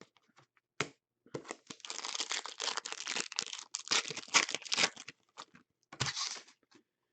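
Crinkling and rustling of trading-card packaging being handled, dense for about four seconds, with a shorter burst near the end.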